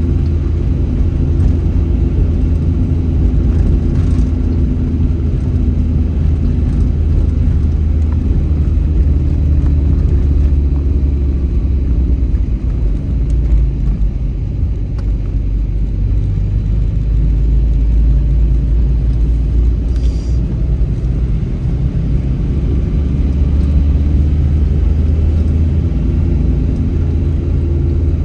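A car driving: a steady low rumble of engine and road noise, with the engine's hum drifting slowly up and down in pitch. A short click about twenty seconds in.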